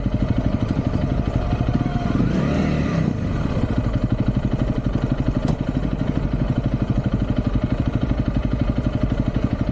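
Motorcycle engine running steadily with a rapid, even pulsing, and a brief louder swell about two seconds in.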